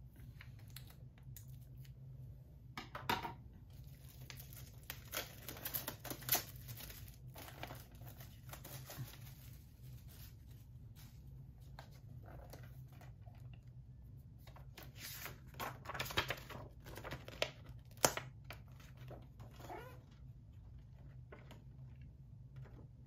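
Plastic wrap being torn and crinkled off a Blu-ray SteelBook package, in scattered bursts with a few sharp clicks, over a low steady hum.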